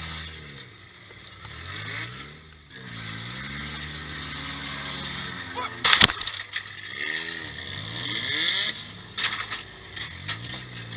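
Demolition derby car's engine revving up and down, heard from inside the car. About six seconds in there is one loud crash of a collision, followed by smaller knocks of further hits near the end.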